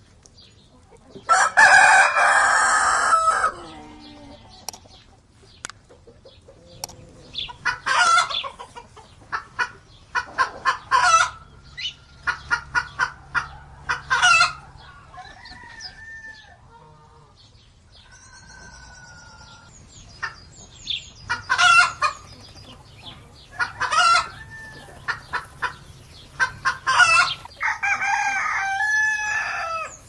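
Chickens calling: a rooster crows loudly about a second in, then hens cluck in short, repeated calls. Another long call comes near the end.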